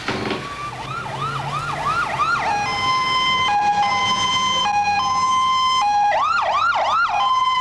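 Ambulance's electronic siren, growing louder as it approaches. It runs fast yelp sweeps, about three a second, switches to a two-tone hi-lo alternation about three seconds in, and goes back to yelping near the end.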